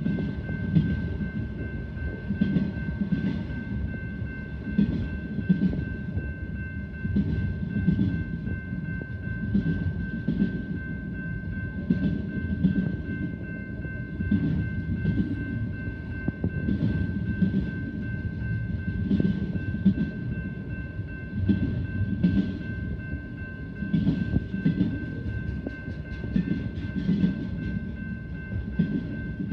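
Train cars rolling past, the wheels clicking over rail joints about once a second over a continuous low rumble. A steady high-pitched whine runs underneath throughout.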